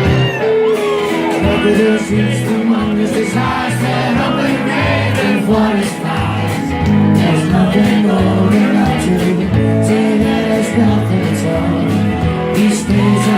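A rock song played live, with guitars, a steady bass line and a voice singing.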